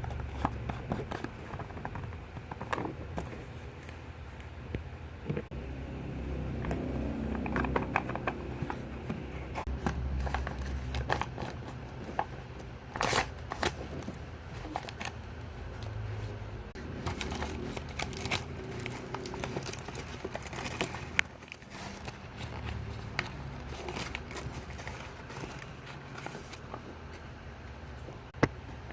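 Close-up handling of packaging during an unboxing: plastic wrapping crinkling and scraping, with many small clicks and taps, a few of them sharper.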